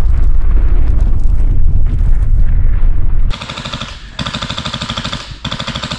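A deep, loud rumble from the intro music, then from about three seconds in an airsoft electric gun firing on full auto: three quick strings of rapid, evenly spaced shots over a whirring gearbox motor.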